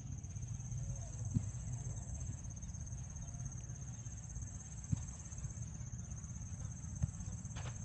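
Outdoor ambience: a steady low rumble of wind on the microphone under a continuous high-pitched insect trill, with four sharp knocks scattered through it.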